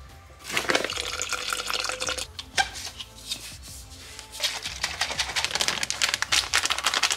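Protein shake being shaken in a stainless-steel shaker bottle: liquid sloshing and rattling inside in quick repeated strokes, in two spells with a short lull between.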